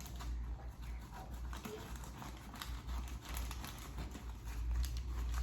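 Handling of a wrapped sandwich and its packaging: irregular small clicks, taps and rustles, over a steady low hum.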